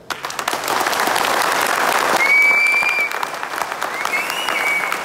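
Audience applauding, breaking out suddenly and continuing steadily, with two shrill whistles from the crowd partway through.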